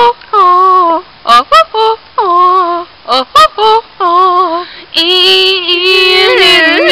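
A girl's voice singing wordless, wavering held notes in short phrases with brief breaks; about five seconds in the singing turns continuous and fuller.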